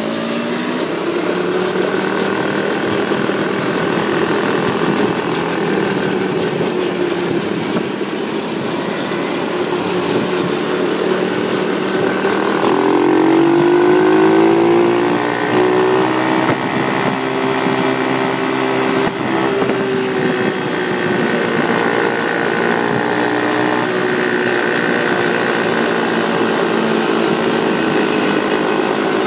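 Small mini ATV engine running close by, its note rising and loudest about 13 to 15 seconds in, then running steadily again.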